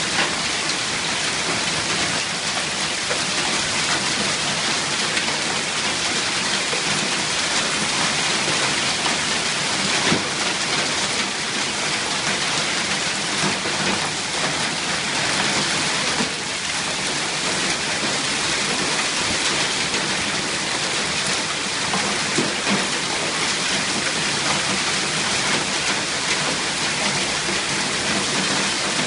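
Hailstorm: hail and rain pounding down in a dense, steady patter, with a few sharper hits standing out now and then.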